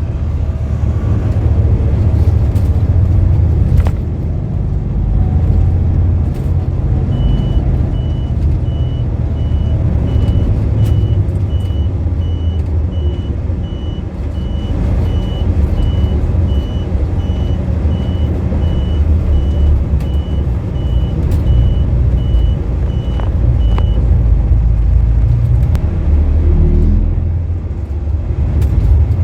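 Bus running: steady low engine and road rumble. From about seven seconds in, a high electronic beep repeats evenly, about twice a second, for roughly seventeen seconds before stopping.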